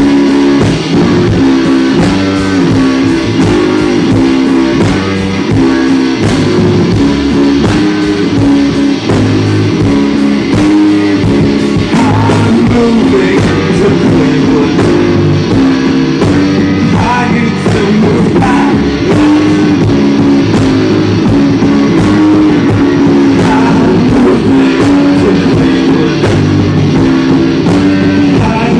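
Live rock band playing loud: electric guitars and drum kit, with singing coming in about twelve seconds in.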